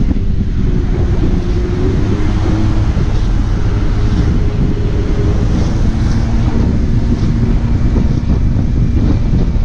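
Wind buffeting the microphone while riding, with the steady drone of a small engine underneath whose pitch shifts a little now and then.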